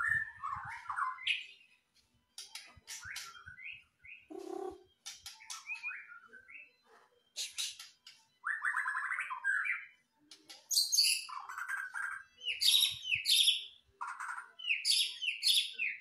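A caged white-rumped shama (murai batu) sings in full voice: a rapid run of varied whistled phrases and trills broken by short pauses. The phrases grow louder and denser in the second half.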